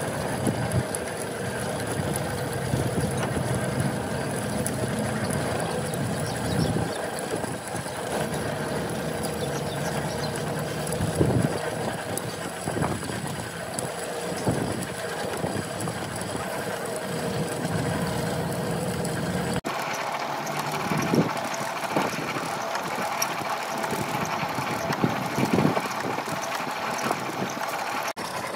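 A machine running steadily, with scattered knocks and clicks that grow more frequent after an abrupt change about two-thirds of the way through.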